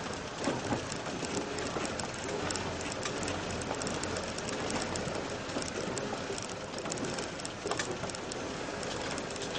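Off-road vehicle driving slowly over a rough dirt track: a steady noisy rumble with many small knocks and rattles.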